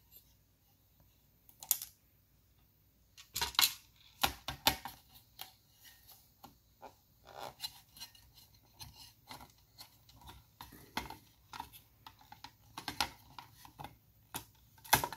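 Scattered clicks, taps and light scraping of hands handling a circuit board and its stamped sheet-metal plate in a plastic access-point housing. The loudest clicks come about three and a half and four and a half seconds in, and again right at the end.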